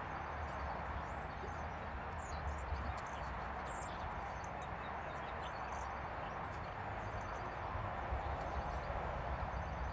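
Steady rushing outdoor background noise with a low rumble, and faint high chirps now and then.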